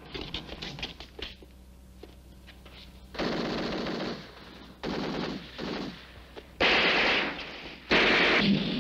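Bursts of automatic gunfire, movie sound effects: a few light knocks, then from about three seconds in five short bursts of rapid fire, the last two the loudest.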